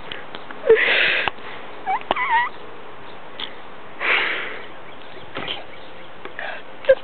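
A person making mock dinosaur noises: a breathy hiss about a second in, a short squeaky chirp around two seconds in, and another breathy hiss around four seconds in.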